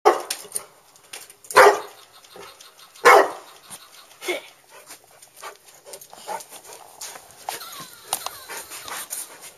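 Chocolate Labrador barking at a robotic toy dog: four loud barks spaced over the first five seconds or so, then only fainter, shorter sounds.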